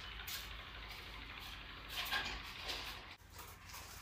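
Quiet room noise with a steady low hum and a few soft rustling and handling sounds about two seconds in, with a brief drop in sound just after three seconds.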